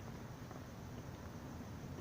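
Faint, steady background noise with a low rumble and hiss; no firework bursts.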